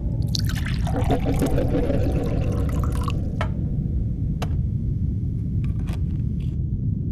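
Water pouring or splashing for about three seconds, full of small crackles, over a steady low rumble. A few single light clicks follow.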